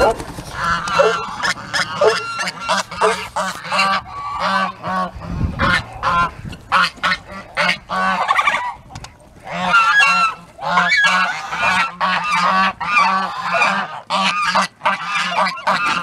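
A flock of domestic geese honking, many short calls overlapping one another without a break.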